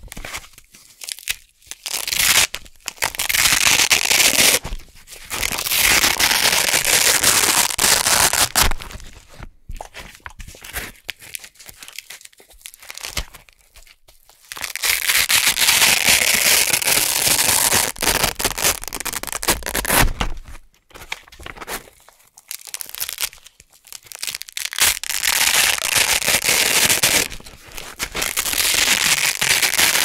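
Hook-and-loop (Velcro) circles being peeled apart right at the microphone: a dense, crunchy crackling rip. It comes as several long peels of a few seconds each, with short pauses and softer patches between them.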